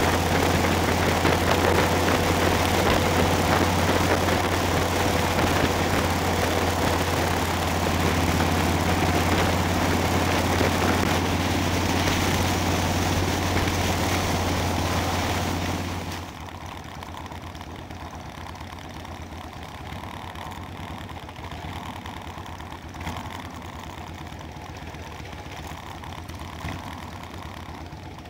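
Motorcycle running at road speed, a steady low engine drone under a loud rush of wind. About sixteen seconds in the sound cuts suddenly to a much quieter scene of motorcycle engines idling and rolling slowly.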